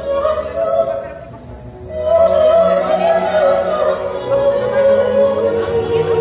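Choral music with voices singing long held notes. It fades about a second in and swells again at about two seconds.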